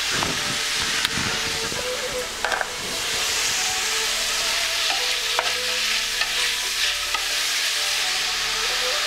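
Chicken pieces and sesame seeds sizzling in a hot frying pan, a steady frying hiss that grows a little stronger about three seconds in, with a few light clicks.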